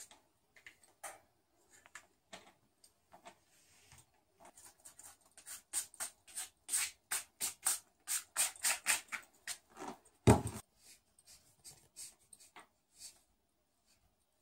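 Felt-tip markers drawing and colouring on a large sheet against a wall: scattered scratchy strokes, then a quick back-and-forth run of about three strokes a second as an area is coloured in. A single loud knock against the wall comes just after the colouring.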